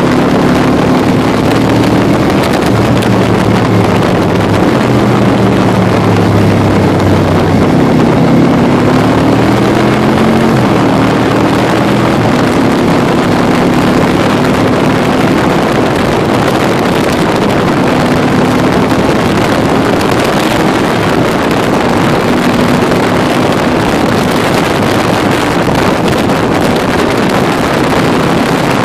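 Can-Am Spyder three-wheeler's engine running at road speed under a heavy rush of wind over the microphone. The engine's pitch rises and falls a few times in the first twelve seconds as the revs change, then holds steadier.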